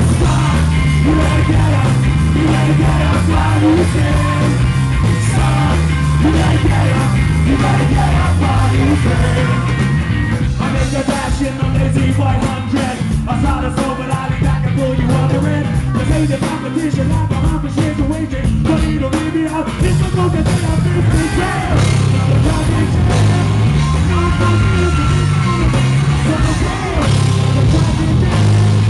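Live rock band playing loud, with electric guitar and drums, and a male singer singing into the microphone.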